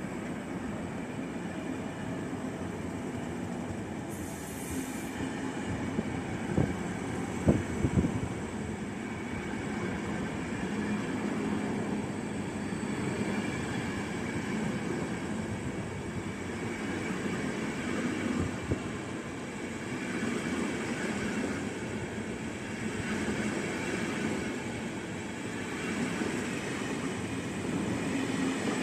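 A train rolling along the track: a steady rumble of wheels and wagons, with a few sharp knocks about seven seconds in.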